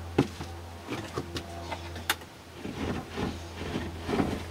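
A small 50-watt solar panel being handled and shifted against a wooden ledge: scattered light knocks and clicks, one sharp click about two seconds in and a louder knock near the end.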